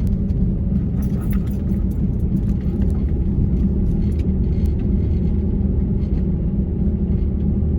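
Vehicle interior noise while driving: a steady low rumble of engine and tyres on a wet road, heard from inside the cab, with faint scattered clicks and rattles.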